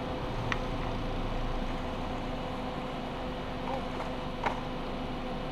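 Steady road rumble from rolling down asphalt, with a faint constant hum under it and two light clicks.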